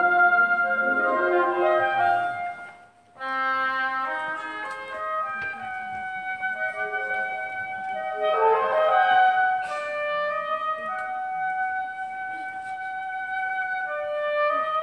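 Instrumental background music with slow, held melody notes, which breaks off briefly about three seconds in before a new passage begins.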